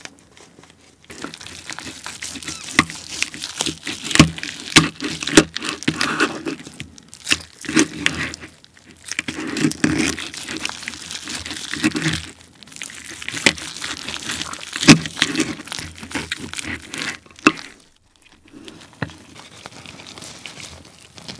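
Knife and fork cutting through a roasted German pork hock whose skin was roasted hard and crispy: a dense run of crackling and tearing with sharp snaps of breaking skin, which dies away near the end.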